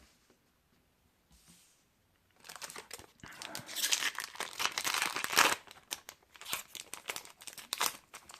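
A Pokémon trading card booster pack's foil wrapper being torn open and crinkled. It starts about two and a half seconds in as rapid crackling and rustling, loudest in the middle, then eases to scattered crinkles near the end.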